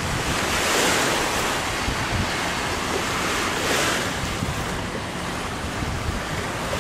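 Strong wind blowing across the microphone: a rushing hiss with low rumbling buffets, swelling in gusts about a second in and again around four seconds.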